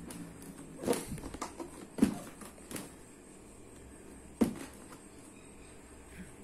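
Cardboard shoebox being handled and set against a tabletop: a few short knocks and rustles of cardboard, the sharpest about two seconds in and about four and a half seconds in.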